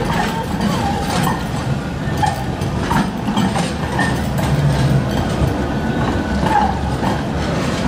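Manchester Metrolink tram (Bombardier M5000) rolling slowly around a curve over the track junction, its wheels knocking over the rail joints and points about once a second above a low rumble.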